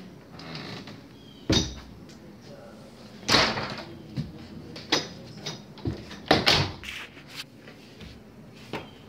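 Scattered thumps, knocks and rustles of a handheld phone being jostled about, with three louder thuds and a few small clicks between them.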